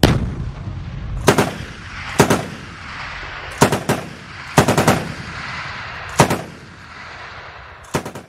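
Battle sound effects: a heavy low boom at the start, then about half a dozen short bursts of rapid gunfire, roughly one every second, over a rumbling background, cutting off abruptly at the end.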